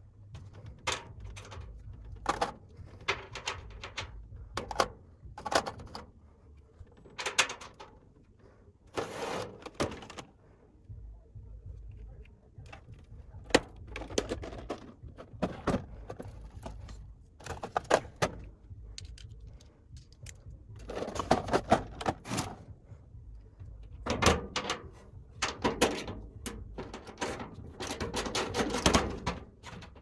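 Irregular clicks, clinks and thunks of hand tools and metal being handled: sockets and a plastic socket-set case, and knocks against the sheet-metal blower housing of a ducted air conditioner's indoor unit. They come in short bursts with brief pauses between.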